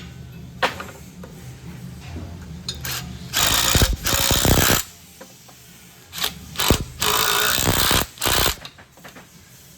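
Taps on a gear pump's end cover to seat it during reassembly, with four loud, harsh bursts of mechanical rattling, each lasting about half a second to a second.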